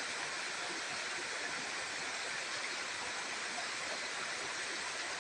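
Steady outdoor background hiss, even and unbroken, with no distinct sounds standing out.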